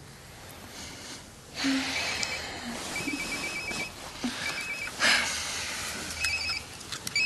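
Mobile phone ringing with an electronic trilling ringtone: short beeping bursts that repeat about once a second, starting about two seconds in. A short burst of noise comes about five seconds in.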